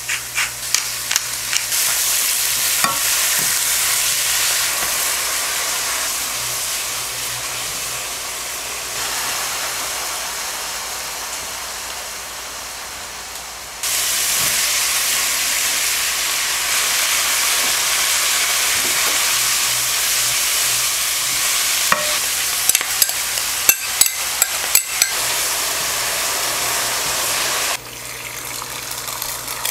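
Thin slices of beef brisket, later with sliced onions, sizzling as they fry in a pan while being stirred. The sizzle steps up louder about halfway through, and a run of sharp clicks from the utensil against the pan comes a little after that.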